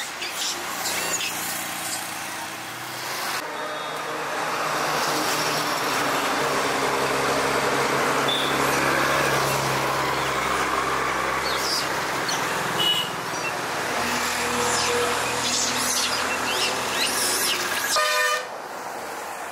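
Road traffic: vehicle engines running past with a steady hum, and horns tooting, including a short horn blast just after 18 s before the traffic noise falls away.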